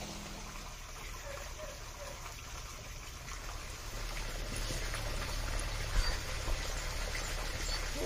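Hands squelching and working a wet, freshly watered chilli-masala marinade in a steel bowl, with a sharp knock about six seconds in.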